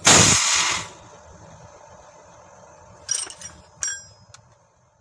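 A short, sudden discharge of compressed air from a HOWO truck's double (spring) brake chamber as the brake is released, lasting under a second; this discharge is what is being checked for the fault. A few faint metallic clinks follow about three and four seconds in.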